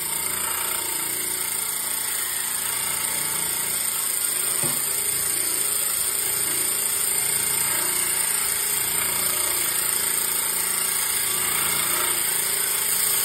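Homemade bandsaw blade cleaner running: a motor turning cleaning wheels on a shaft while a sawmill band blade is drawn through them, a steady machine sound with a hissing scrub that grows slightly louder.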